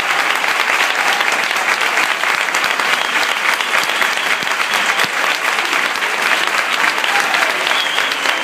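Large crowd applauding: dense, steady clapping from many hands, without a break.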